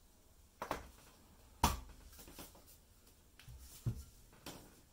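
A few soft knocks and clicks of handling: the MS-01 mini PC's all-metal case shell and its slid-out motherboard tray being set down on a table, the clearest knock about a second and a half in.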